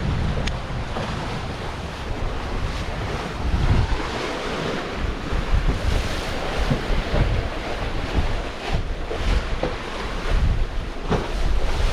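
Strong wind buffeting the microphone in irregular gusts over the rush of waves around a sailing catamaran, which is under a third reef in a steady 25 knots of wind.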